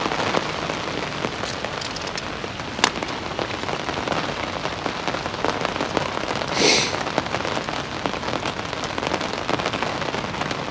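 Steady rain pattering on a fishing umbrella overhead and on the lake, a dense hiss of fine drops. There is a single sharp tap about three seconds in and a brief louder rustle near seven seconds.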